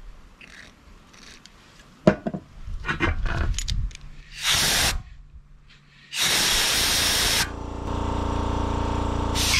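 Compressed-air blow gun blowing through a brass carburetor jet to clear its passages: a short blast of hiss about halfway through, then a longer blast of over a second. A steady hum with a low drone starts near the end.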